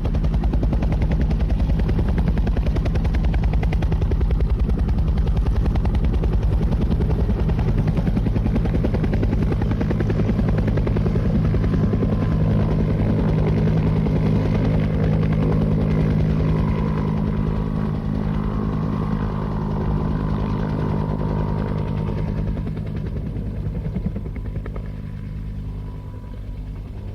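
Helicopter with rapid rotor blade chop over a low engine drone, steady at first, then fading gradually over the last third as it draws away.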